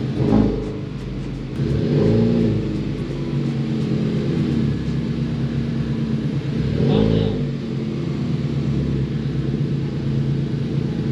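Honda Civic Type R's turbocharged 2.0-litre four-cylinder, breathing through a 27WON front pipe and cat-back exhaust, idling steadily and blipped three times: briefly right at the start, longer about two seconds in, and again about seven seconds in.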